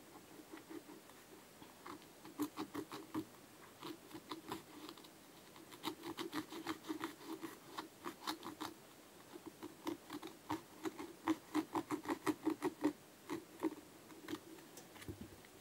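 Hand-cutting into a yellow Adidas Predator football boot with a small blade: runs of crisp clicks and snips, several a second, as the boot's synthetic upper is cut through, stopping shortly before the end.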